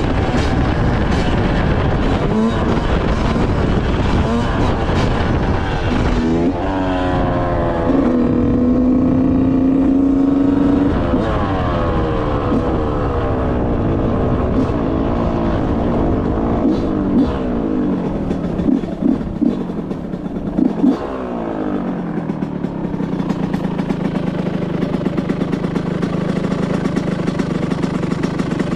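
2005 Yamaha YZ125's single-cylinder two-stroke engine running, revving up and holding high, dropping back, blipped a few times, then settling into a steady idle near the end. The rider suspects the carburettor air screw is turned in too far.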